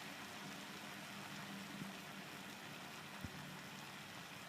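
Faint, steady sizzle of dry potato sabzi cooking uncovered in a wok, with a couple of small clicks.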